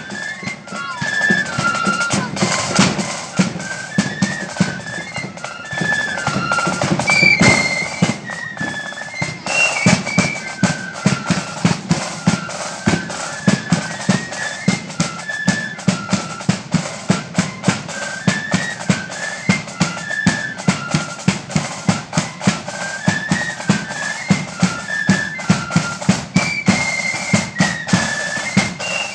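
Marching flute band playing a tune, the flutes in unison over bass drum and snare beating a steady march time of about two beats a second.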